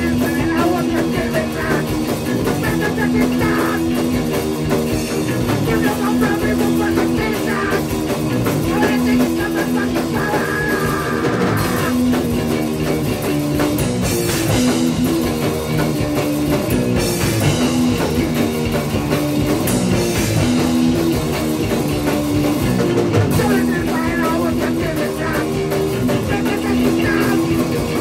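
Crust punk band playing live: electric guitar and drum kit, loud and continuous.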